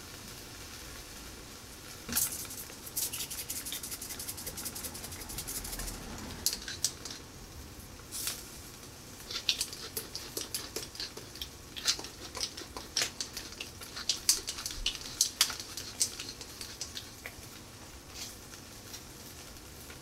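Thick beef steak sizzling on a wire mesh grill over charcoal, with a steady hiss and irregular sharp crackles and pops that start about two seconds in and thin out near the end.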